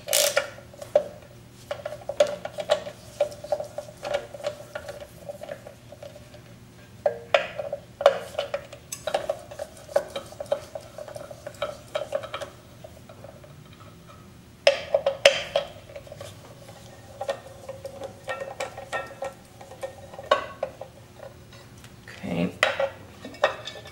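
Hand ratchet with a T15 Torx bit clicking in short bursts several times as small screws are backed out, mixed with light metallic clinks of tools and screws.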